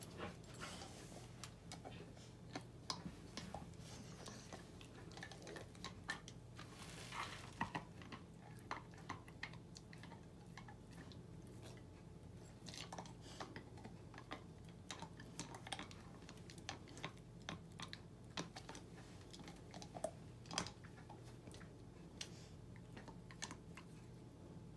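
Rottweiler puppy gnawing a red deer antler: irregular clicks and scrapes of teeth on the hard antler throughout.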